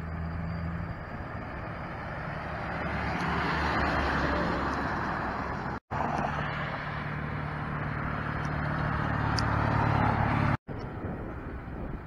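Road traffic: a truck passing, its engine drone and tyre noise swelling to a peak about four seconds in. After a brief drop-out about halfway, the steady low drone of another approaching truck grows louder, then cuts off abruptly near the end.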